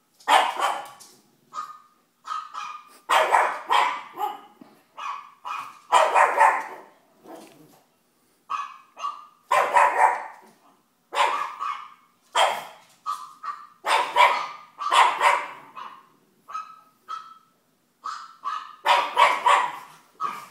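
Pug puppy barking over and over, short high-pitched barks in irregular clusters with brief silent gaps between.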